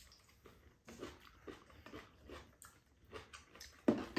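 Soft, irregular chewing and mouth noises of people eating, with light clinks of a spoon in a bowl. A sharper clack comes near the end, like utensils set down.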